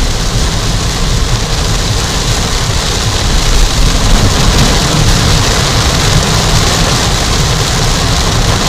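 Torrential rain pelting a car, a loud, steady hiss with a low rumble underneath.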